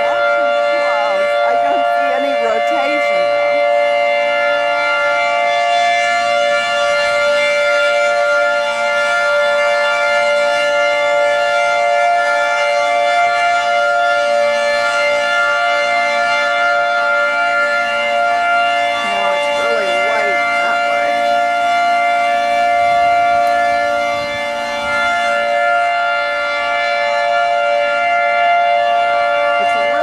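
Outdoor tornado warning siren sounding a steady tone that holds its pitch, with several notes heard together, signalling a tornado warning.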